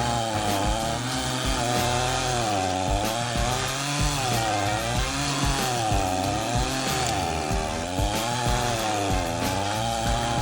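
Stihl chainsaw fitted with a stump-grinder cutter attachment, running hard and grinding into a tree stump. Its engine pitch dips under load and climbs back again and again, about once a second.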